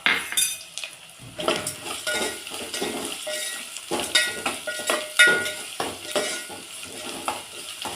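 Metal spoon stirring and scraping a pan of frying tempering, with irregular clinks and knocks against the pan that ring briefly, over a faint sizzle.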